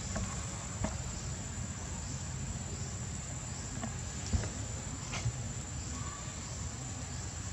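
Steady high-pitched insect chorus ringing on one tone, over a low rumble, with a couple of soft knocks about four and five seconds in.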